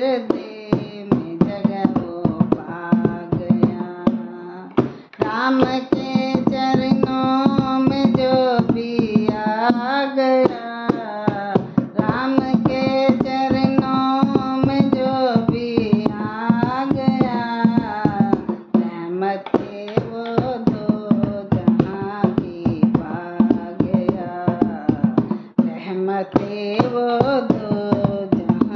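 A woman singing a Hindi devotional bhajan, with a wavering, ornamented melody, over a steady, fast dholak rhythm. Singing and drumming break off briefly twice, once about five seconds in and once near the end.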